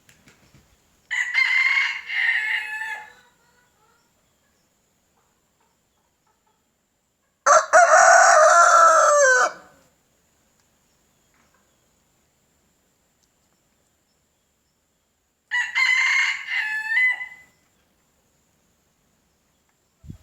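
Three rooster crows a few seconds apart, each about two seconds long. The middle crow is lower-pitched and louder than the other two.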